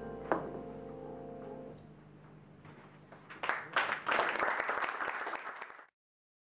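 A jazz band's last chord ringing out and fading away, with one sharp hit just after it starts. About three and a half seconds in, the audience breaks into applause, which cuts off abruptly near the end.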